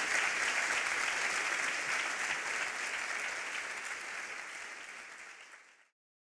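Audience applauding, a dense steady clapping that fades away near the end and stops.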